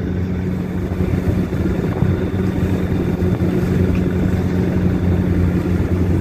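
Fishing boat's engine running steadily while under way: a low, even hum with a noisy rush of wind and water over it.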